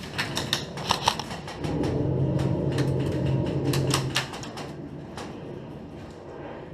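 Airsoft guns firing single shots: irregular, sharp clicks and cracks, some close together. A steady low hum runs beneath them from just under two seconds in to about four seconds in.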